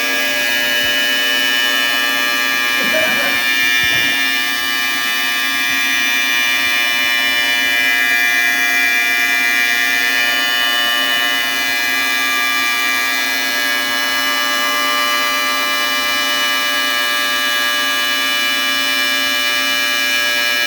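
Ultrasonic cleaning tank running: a steady, loud whine made of many held tones, with a brief wavering sound about three seconds in.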